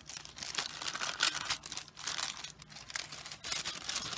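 Parcel packaging being unwrapped by hand: irregular crinkling and rustling with many small crackles.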